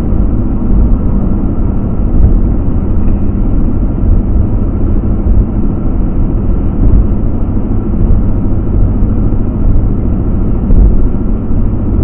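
Steady road and engine noise inside a moving car's cabin: tyres on pavement and the engine running at a constant cruise.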